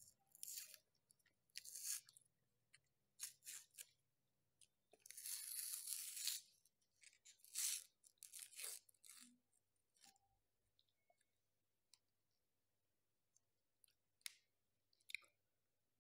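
Crunching bites and chewing of a chocolate-coated ice cream cone, mixed with the crinkling and tearing of the cone's paper sleeve as it is peeled away. The sounds come in short bursts through the first half, with one longer tearing stretch a little after five seconds, then thin out to a few small clicks.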